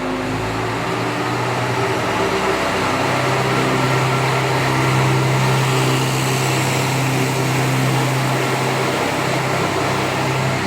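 Diesel engine of an MRT300 railcar running under throttle as the train pulls away. Its hum steps up in pitch about a second in and again about three seconds in, then holds steady.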